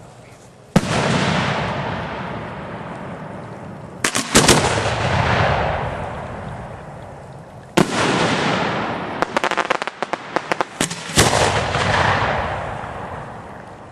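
Display fireworks going off. A loud bang comes within the first second, then a tight cluster of cracks a few seconds later and another bang past the midpoint. A rapid run of crackling pops follows, then one more bang, each trailing off in a long rolling echo.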